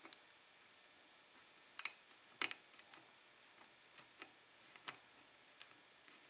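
Faint, irregular clicks and ticks of a pick working the pins of a DOM euro cylinder lock, with the loudest pair about two and a half seconds in.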